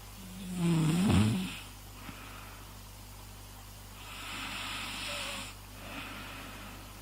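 Snoring: a throaty, rasping snore on the in-breath about a second in, the loudest sound here, followed around four seconds in by a long, hissing out-breath.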